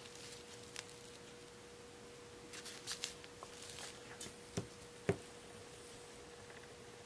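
Light rustling and small clicks of a plastic fashion doll and its dress being handled and set upright, with two sharper taps a little past halfway. A faint steady tone sits underneath.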